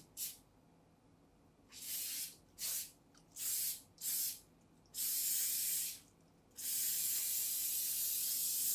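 Aerosol vegetable-oil cooking spray hissing into a frying pan in separate bursts. Two quick puffs and four short sprays come first, then one of about a second, then a long spray of about three seconds.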